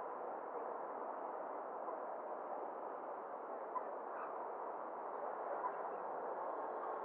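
Steady, muffled road and traffic noise heard from a car driving slowly towards an intersection, with a few faint short chirps about four and six seconds in.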